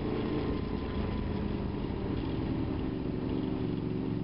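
Honda VFR motorcycle's V4 engine running steadily while riding in traffic, with a hiss of road and wind noise.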